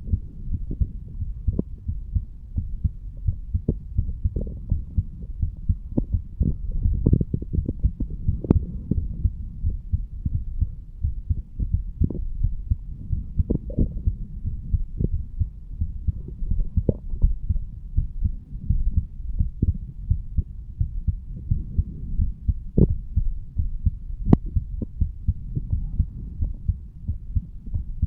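An adult man's heartbeat recorded against the chest over the mitral valve area while he stands: steady repeated low-pitched beats. A couple of brief sharp clicks, about 8 seconds in and near the end, stand out over the beats.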